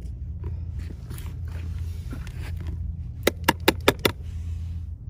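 A plastic spoon scraping and stirring dry, crumbly mullet groundbait in a plastic tub. About three seconds in comes a quick run of five sharp taps, the loudest sounds here. A steady low hum runs underneath.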